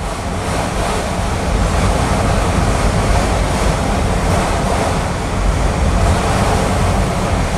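Autorack freight cars rolling past at speed: a steady, loud noise of steel wheels on the rails with a strong low rumble.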